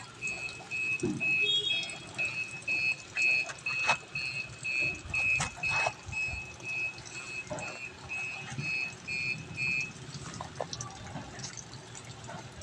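Rapid, even high-pitched beeping, about two and a half beeps a second, that stops about ten seconds in, with a few scattered knocks.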